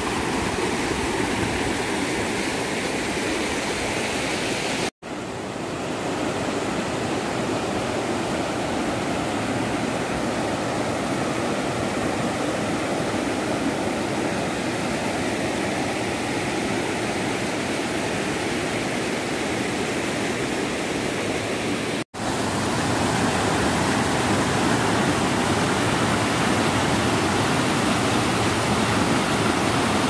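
Stream water rushing in white rapids over rock slabs and boulders, a steady dense rush. It breaks off for an instant twice, about five seconds in and again about twenty-two seconds in, and is a little louder after the second break.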